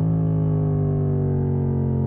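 Yamaha MT-07's parallel-twin engine through an exhaust with the dB killer removed, its revs stepping up at the start and then sinking slowly: a downshift as the bike slows.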